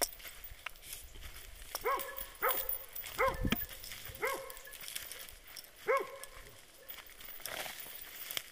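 Boar-hunting dogs barking about six times at irregular intervals, with twigs and brush crackling close by from someone pushing through dense scrub.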